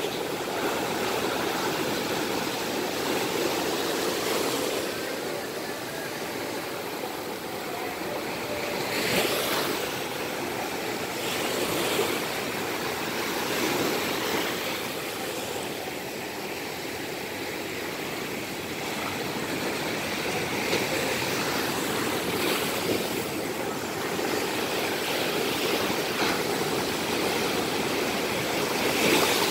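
Ocean surf breaking on the shore: a steady rushing wash of waves that swells and falls, with louder breakers crashing every few seconds.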